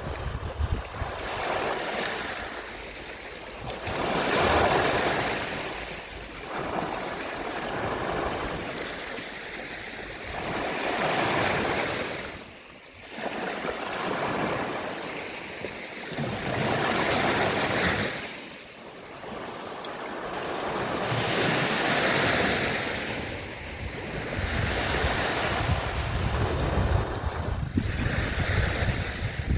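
Gentle sea waves washing onto a shore, each swell rising and falling away about every five or six seconds. A low wind rumble on the microphone underneath grows stronger near the end.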